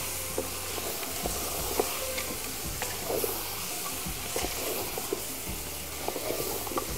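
Meat and vegetables sizzling in a large aluminium pot on a gas burner as a wooden spoon stirs them. Short scrapes and knocks of the spoon against the pot come at irregular intervals.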